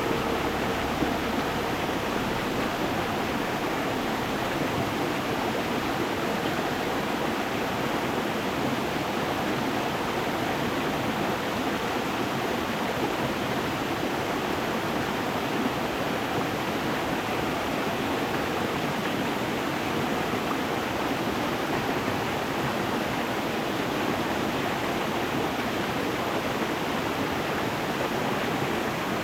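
Stream water flowing over stones, a steady, even rushing. A faint ringing tone fades out about a second in.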